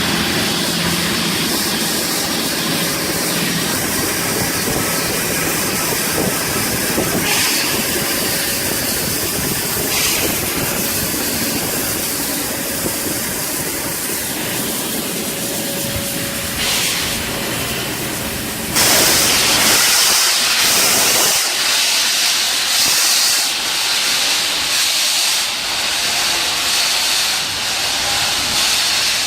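Steam locomotive hissing steam with a low rumble underneath; at about 19 s a louder, harsher hiss of escaping steam starts and comes and goes in pulses.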